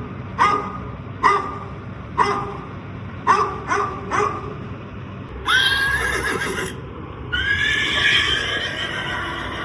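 A dog barking six times over the first four seconds, then a horse whinnying in two long calls.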